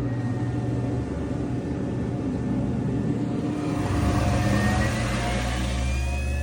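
A loud motor switched on abruptly and running steadily, with a deep hum and a whine that slowly rises in pitch.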